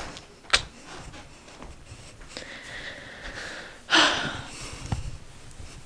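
Handheld camera handling noise with a sharp click about half a second in, then a loud breathy exhale close to the microphone about four seconds in.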